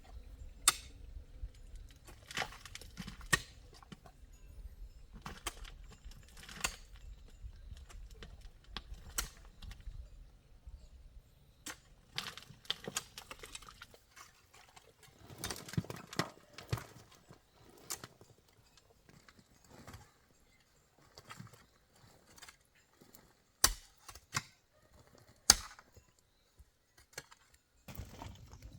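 Scattered knocks and taps at irregular intervals over a faint low rumble in the first third, with two sharp, louder knocks near the end.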